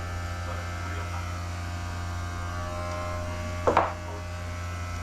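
Steady low electrical hum, with one short, sharp sound about three and a half seconds in.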